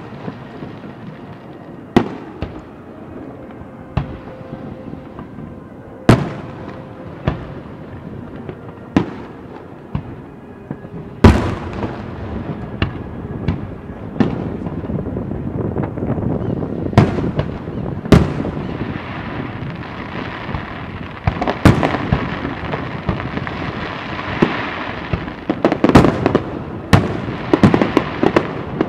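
Fireworks display: aerial shells bursting with sharp booms every second or two, coming thicker in the second half, with a spell of dense crackling and a quick run of booms near the end.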